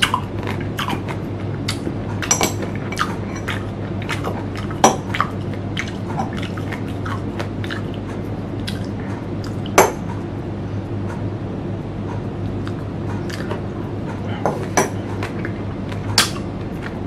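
Close-miked chewing of green mango: scattered wet mouth clicks and crunches, with a steady low hum underneath.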